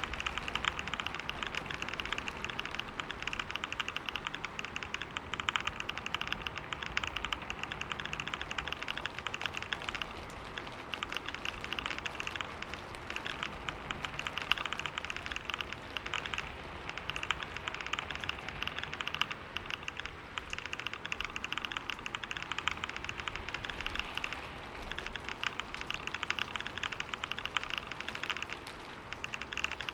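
Fast, continuous typing on a computer keyboard: a dense stream of key clicks at about 125 words per minute, easing briefly a few times.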